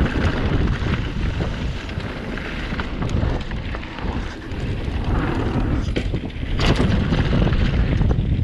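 Wind rushing over an action camera's microphone on a fast mountain-bike descent, with a steady rumble of tyres and frame on the dirt trail. There are a few sharp knocks, one about three seconds in and a louder one two-thirds of the way through.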